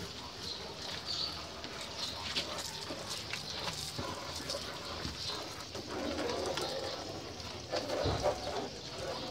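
Water hissing from a garden-hose trigger spray nozzle as it rinses soap off a scooter's body panels and floorboard, with a bird calling at the same time.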